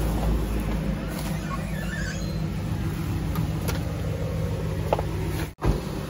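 A steady low mechanical hum with a few faint clicks and knocks. It cuts out abruptly for an instant near the end.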